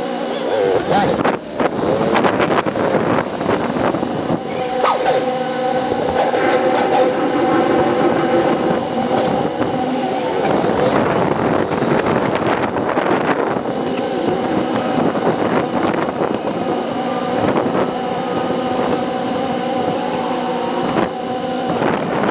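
Motorcycle engine running while riding in traffic, its pitch held steady for long stretches and shifting at a few points with throttle and gear changes, over rushing air noise. The playback is sped up, which raises the pitch.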